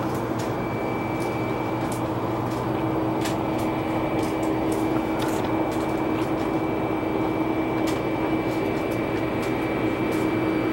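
Steady machine drone with a low hum and a thin, steady high whine over it, plus scattered light clicks, from ground equipment running beside a parked Antonov An-24 turboprop whose propellers are stopped. The drone swells slightly about halfway through.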